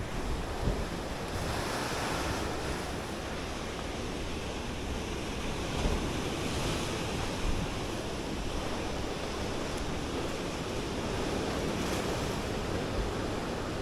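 Sea waves surging and breaking against rock outcrops and a concrete seawall: a steady wash of surf that swells a little now and then.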